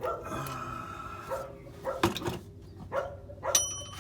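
A dog barking several times.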